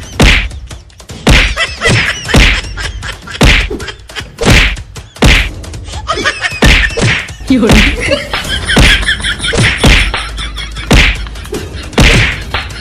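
A series of loud whacks and thuds at uneven intervals, roughly one a second, with a wavering voice-like sound between about seven and nine seconds in.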